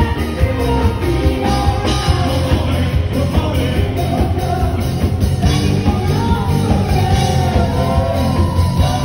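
A live band playing upbeat music with a strong, steady bass beat, and a singer's voice carried over the sound system.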